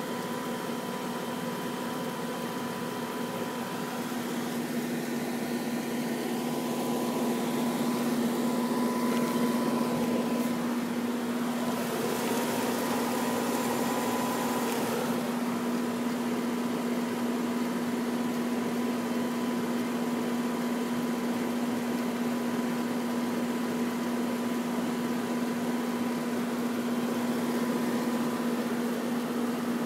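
Ruud central air conditioner's outdoor condensing unit running, the compressor and condenser fan giving a steady hum with a strong low tone and a fainter higher tone.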